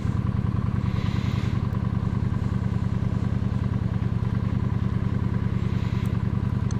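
Honda Shadow 750 V-twin motorcycle engine running at a steady speed, with an even, unbroken exhaust pulse.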